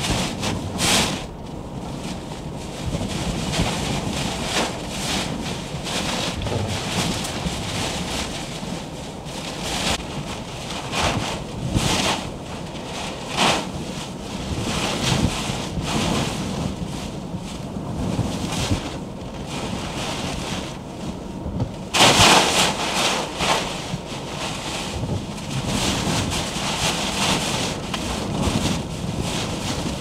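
Storm wind in a nor'easter gusting and buffeting the microphone: a steady rushing noise broken by louder gusts every second or two, the strongest about two-thirds of the way through.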